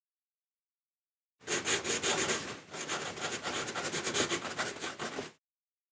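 Writing by hand on paper: quick scratching strokes of the writing tip across the page, starting about one and a half seconds in, with a brief pause near the middle, and stopping shortly before the end.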